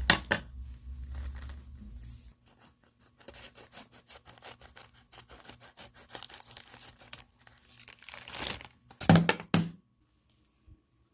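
Packaging being torn open and crinkled by hand: a long run of small crackles and rustles, then two louder tears about nine seconds in.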